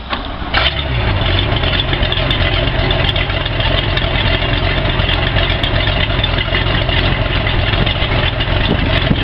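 Boat engine cranking on a newly replaced starter, catching about half a second in, then idling steadily.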